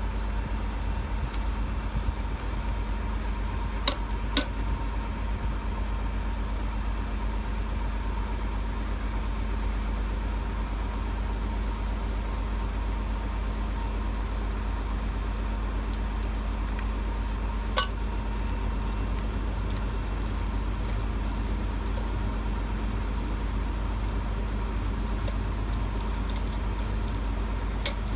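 Steady low rumble, with a few sharp metallic clicks as a steel stay wire and its fittings are handled: two about four seconds in, one near the middle, and a quick run of clicks near the end.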